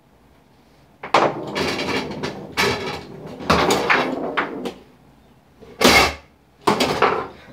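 Wooden foosball table in play: the ball and rods knock and clatter against the wood in a busy run of knocks starting about a second in, then a sharp, loud hit about six seconds in and another hard knock just after.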